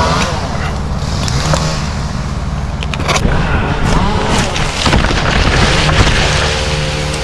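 Ported Echo CS-2511T top-handle two-stroke chainsaw running steadily at idle, its pitch rising and falling briefly a few times.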